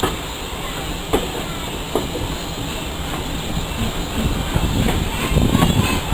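A heritage railway train running on the rails: a steady rumble with a few sharp clicks, growing louder near the end.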